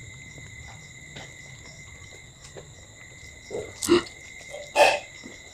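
Close-up eating noises, chewing and mouth sounds, with two short louder ones about four and five seconds in, over a steady faint high-pitched whine.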